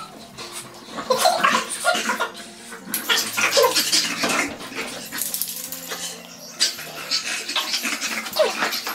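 A pug playing tug and then scampering about on a wooden floor, its dog noises and movements coming in short, uneven bouts.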